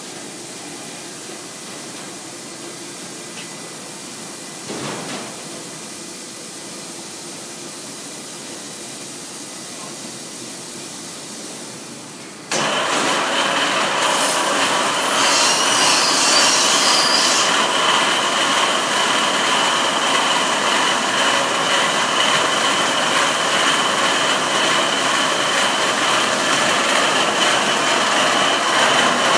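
Automatic car wash machinery running: a steady hum, then about twelve seconds in the rotating brushes start up with a sudden jump to a loud, steady whirring noise. A brief higher hiss follows a couple of seconds later.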